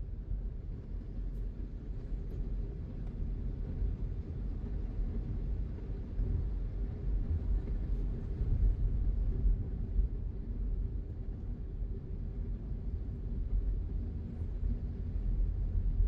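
Steady low rumble of a car being driven along a road: engine and tyre noise with no sudden events.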